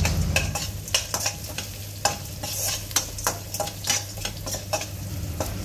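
Perforated steel spoon stirring onions, cashews and dal frying in oil in a stainless steel kadai: repeated short metallic scrapes and taps, several a second, over a steady sizzle.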